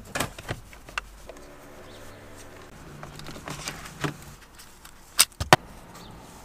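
Plastic clicks and rattles from handling a car's steering-column combination switch (indicator and light stalk) and pushing its wiring plug into place, with two sharp, loud clicks about five seconds in.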